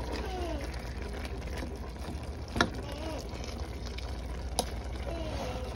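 A spatula stirring and scraping browning ground beef and sausage in a pan, with two sharp knocks of the spatula against the pan, the louder about two and a half seconds in, over a steady low hum.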